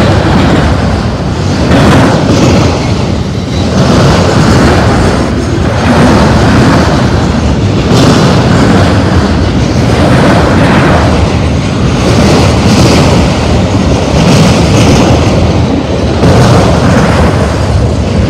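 Autorack freight cars rolling past at close range: a loud, continuous rumble of steel wheels on rail, swelling about every two seconds as the wheel sets pass.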